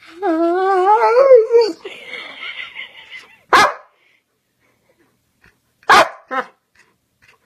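A dog gives a long, wavering howl-like cry that rises slightly in pitch over about two seconds, then barks three times, the last two close together.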